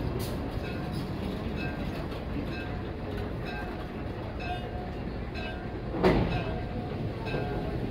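Electric locomotive E329 (Taiwan Railway E300 series) moving slowly around the roundhouse turntable, a steady low rumble with short high tones recurring every second or so. One loud clunk comes about six seconds in.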